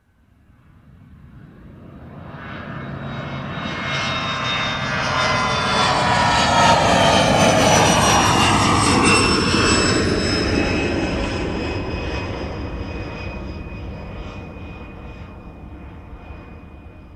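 Large jet airliner passing very low overhead: the engine noise swells up from nothing, peaks about halfway through, then fades away. High whining engine tones slide down in pitch as it goes by.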